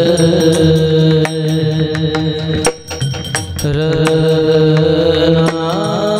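Marathi devotional abhang music: long held melodic notes over regular percussion strikes, with a short drop in loudness about three seconds in before the held notes come back.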